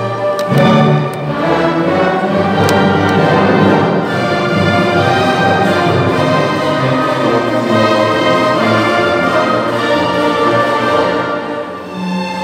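A symphony orchestra playing, strings and brass together, with the full ensemble coming in louder about half a second in.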